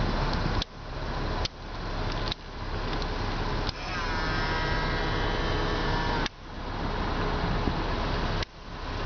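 Nissan power-folding door mirrors worked from the dash OPEN/CLOSE switch: a few clicks, then the fold motor whines steadily for about two and a half seconds and stops, over steady cabin noise.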